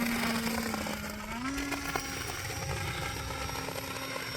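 Electric motor and propeller of a radio-controlled kite's thrust-vectoring pod running in flight, a steady hum whose pitch steps up about a second and a half in as the throttle opens, then holds.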